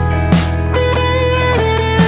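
Background music led by guitar, over a steady bass with a regular beat.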